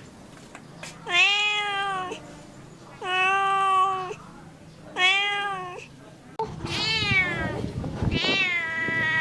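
Domestic cat meowing five times. Three short, even meows come about two seconds apart, then two longer meows that start high and slide down in pitch.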